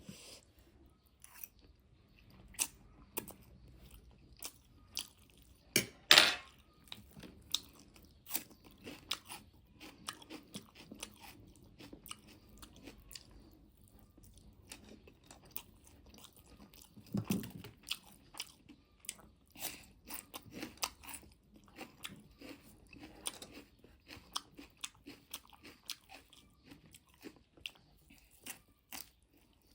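Close-miked crunchy biting and chewing of food in a mukbang, a steady run of sharp crunches with a loud bite about six seconds in.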